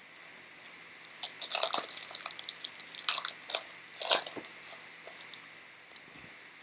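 Trading cards being handled and flipped through by hand: papery rustling and clicks in several short bunches.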